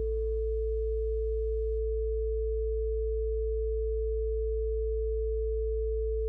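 Steady electronic sine tones: a low 55 Hz healing-frequency hum with a clear higher tone above it, both unchanging. Faint soft background music fades out within the first two seconds.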